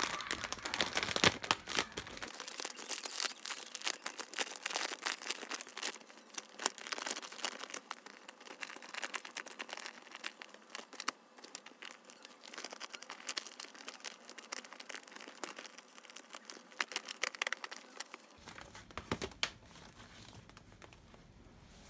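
Clear plastic bag crinkling and crackling as hands handle it, reaching inside and smoothing it flat; the crackling is densest and loudest in the first few seconds and thins out later.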